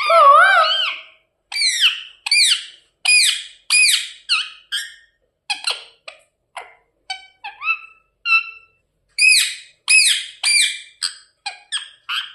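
Ringneck parrot giving a quick run of short, shrill chirps and squawks, most of them sweeping down in pitch. It opens with one longer warbling call, goes softer and clickier midway, then gets louder again near the end.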